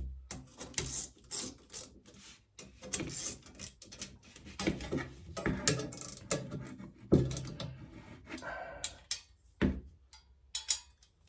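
Bicycle parts being handled and moved around: irregular clinks, knocks and rubbing scrapes, with a few sharper clicks near the end.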